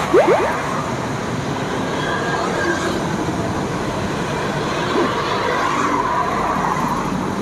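Steady street traffic noise from motorbikes and cars passing on the road.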